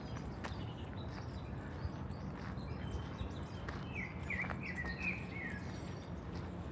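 City ambience: a steady low hum of distant traffic, with a small bird giving a quick run of short descending chirps about four to five seconds in, and light clicks of footsteps.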